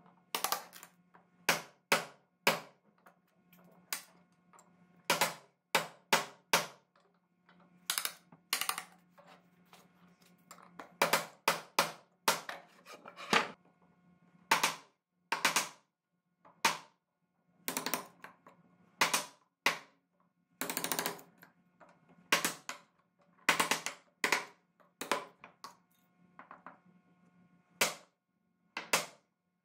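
Hammer striking the hooped handle of a chisel, chopping dovetail waste along the baseline in a hardwood board. The sharp taps come irregularly, roughly one a second, often in quick pairs or threes, over a faint steady hum.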